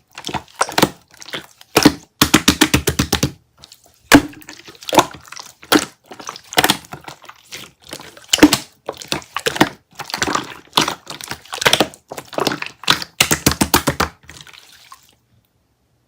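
Green jiggly slime being squeezed and pressed by hand, making clusters of rapid wet clicks and pops. It stops about a second before the end.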